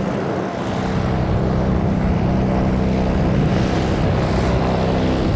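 Airbus Beluga XL's twin Rolls-Royce Trent 700 turbofan engines running steadily at taxi power, a constant rumble with a low hum, with some wind buffeting the microphone.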